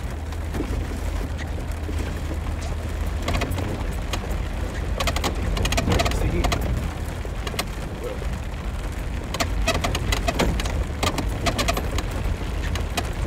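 Inside a vehicle crawling over a rough gravel track: the engine and tyres give a steady low rumble. From about three seconds in, clusters of sharp clicks and rattles come over it, as the vehicle jolts and stones or rain strike it.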